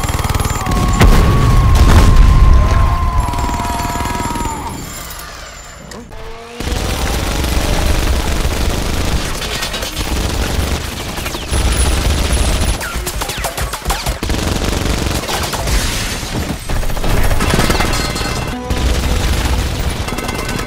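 Film soundtrack of minigun fire: long strings of very rapid shots with heavy booms, mixed over a music score. The firing eases off about five seconds in and comes back hard about a second and a half later.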